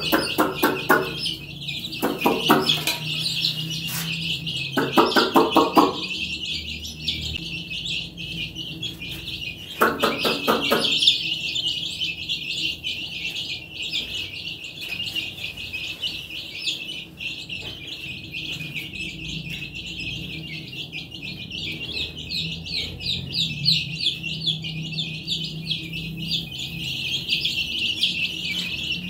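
Baby chicks peeping, a dense, continuous chorus of high chirps from many birds. A few louder, lower calls made of rapid pulses break in during the first dozen seconds.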